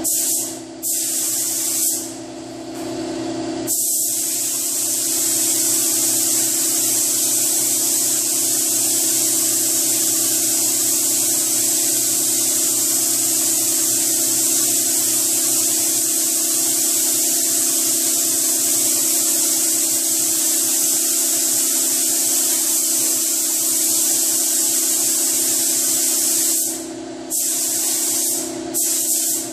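Compressed-air paint spray gun hissing as it sprays, triggered in a few short bursts, then held for one long continuous pass of over twenty seconds, then a couple more short bursts near the end.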